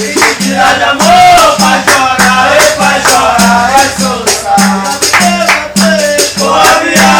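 Capoeira song: a voice sings a melody over an even rhythm of a repeated low note and a rattling shaker.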